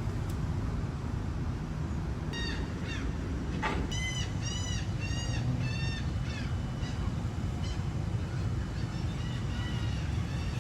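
A bird calling a quick run of about six short, arched calls a couple of seconds in, with a few fainter calls near the end, over a steady low rumble. A single sharp click comes in the middle of the calls.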